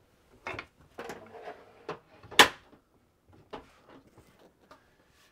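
A fold-up ceiling reading light being moved by hand: a few light clicks and knocks, with one sharp clack about two and a half seconds in.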